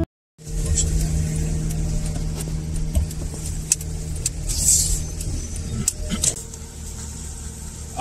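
Car running slowly, heard from inside the cabin: a steady engine and road hum with scattered small clicks and rattles. The hum drops away a little past six seconds in, leaving a quieter idle.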